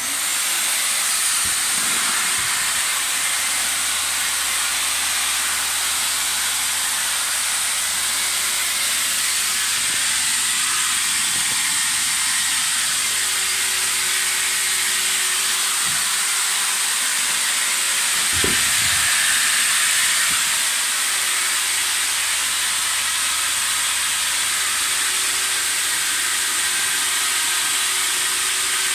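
Electric air pump running steadily, blowing air through a corrugated hose into a PVC inflatable boat's tube: a loud, even hiss that starts abruptly.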